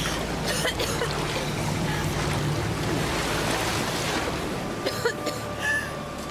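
Ocean surf washing and breaking in a steady rush of water noise.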